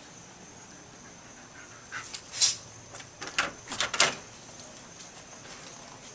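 German Shepherd dog making a few short, sharp sounds, one cluster about two seconds in and another between three and four seconds in.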